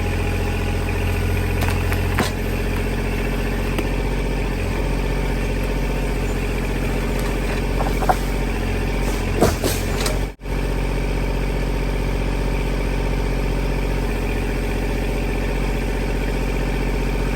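Kubota compact tractor's diesel engine running steadily, with a few short sharp knocks or snaps over it, the clearest about eight and nine and a half seconds in.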